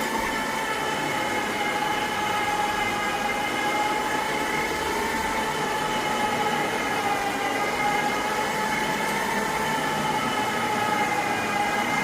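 Carpet-cleaning machine's electric motor running with a steady high whine, slightly wavering in pitch, while cleaning solution is scrubbed into the carpet.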